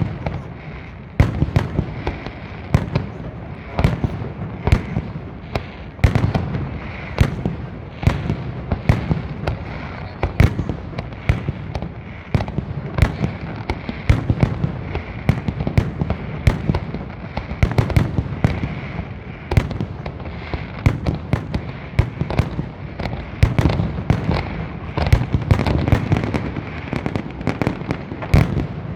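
Aerial fireworks display in full barrage: a rapid, unbroken string of loud bangs, several a second, over a continuous rumble and crackle of shells bursting.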